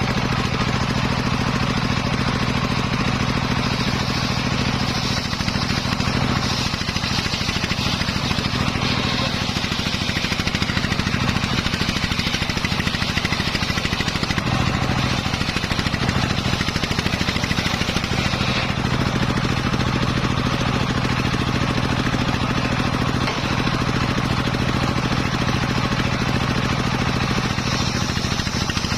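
Homemade engine-driven circular saw running steadily while cutting teak wood: a constant low engine note under the hiss of the blade, the cutting noise changing in strength every few seconds.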